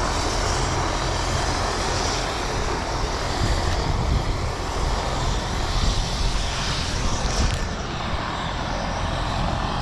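Helicopter running with its rotor turning, a steady engine-and-rotor noise with a fluttering low rumble.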